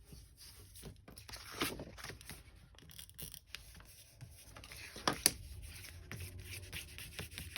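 Hands working on a paper planner page: soft scrapes and rustles with scattered light clicks, the sharpest click about five seconds in.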